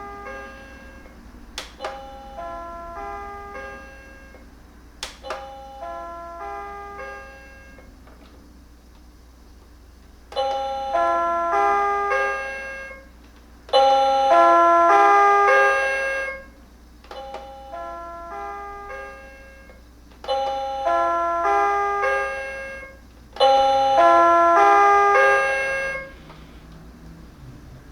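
Commercial electronic chime playing its short melody of clean stepped tones again and again, each phrase about two to three seconds long. The early phrases are softer, several starting with a sharp click, and the chime is much louder from about ten seconds in.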